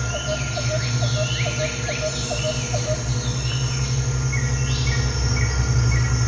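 Chirping insect and bird calls over a steady low hum. Short chirps repeat about three times a second in the first half, with swooping higher calls. From about four seconds in, evenly spaced high chirps come about twice a second.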